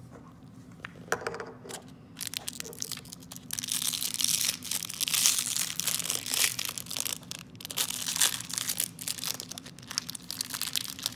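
A crinkly plastic-foil toy wrapper being pulled open and crumpled in the hands, a dense crackling that starts about two seconds in after a few sharp clicks.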